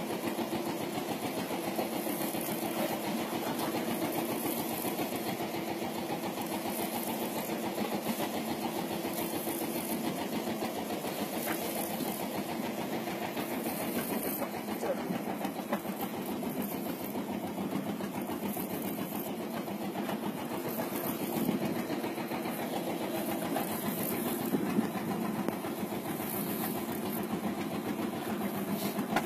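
A boat's motor running steadily at an even idle, with a fast, regular pulsing.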